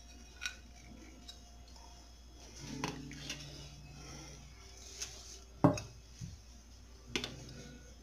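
Metal utensil clinking and scraping against the pizza pan as a slice is cut and lifted out: a handful of separate knocks and clinks, the sharpest one a little past the middle.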